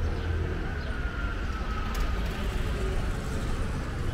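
Town street ambience with a steady low rumble of road traffic. A faint whine slides slightly down in pitch through the first half, and a couple of light clicks come about two seconds in.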